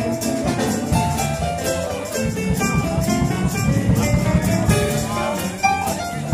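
Live swing jazz band playing: saxophones carry the melody over piano, bass and a drum kit whose cymbals keep a steady, even beat.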